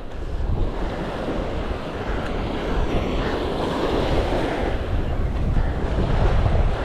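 Surf washing onto the beach, with wind buffeting the microphone in a steady low rumble.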